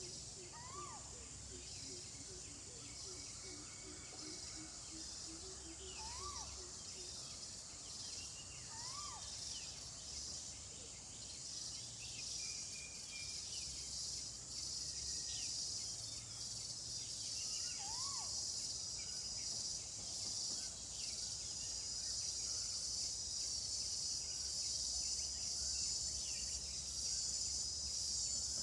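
A steady, high-pitched insect chorus that grows gradually louder, with a few short bird calls scattered through it and a rapid low trill in the first several seconds.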